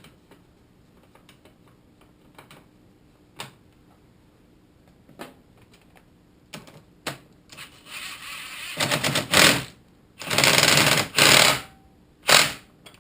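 Mechanical work on a motorcycle fork leg on the bench: a few light clicks and knocks, then several loud rattling bursts in the last five seconds as the fork parts are worked together with tools.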